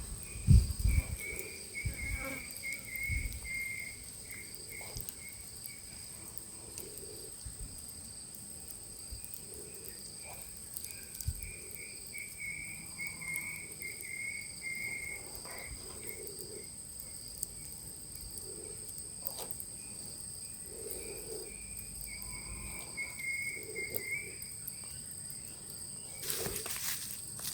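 A steady, high-pitched chorus of insects, with a pulsing trill that comes and goes. Scattered faint clicks and knocks run underneath, and a louder rush of noise comes near the end.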